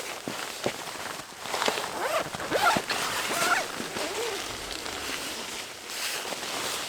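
Footsteps crunching in deep snow, with a few short squeaky sounds that bend in pitch around the middle.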